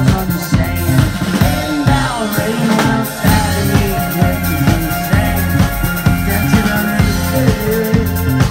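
Live psychedelic rock band playing loud amplified music: electric guitar with bending notes over keyboard, a strong bass line and a drum kit.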